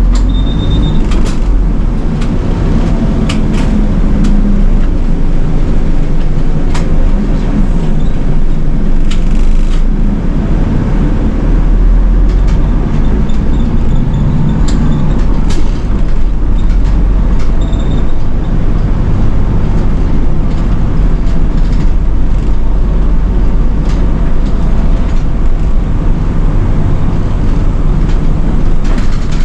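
Nishitetsu city bus diesel engine running as the bus drives, heard from inside the cabin, with road noise and occasional small clicks and rattles.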